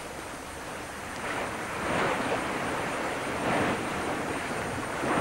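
Rushing sea and wind noise, swelling and easing every second or two.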